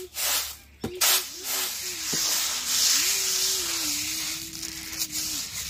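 Raw rice grains rustling and sliding across a woven bamboo winnowing tray as it is shaken and the grains are spread by hand: a couple of short swishes, then a longer hiss about three to four seconds in. A faint wavering tone runs underneath.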